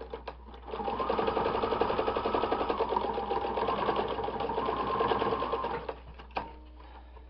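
Electric sewing machine stitching at speed: a fast, even run of needle strokes that starts about a second in and stops near the end, with a few single clicks of the machine around it.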